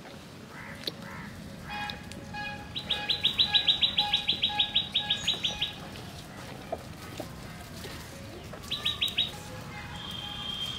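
A bird calling: a fast run of sharp, high repeated notes, about seven a second for some three seconds, then a shorter run and a thin held whistle near the end.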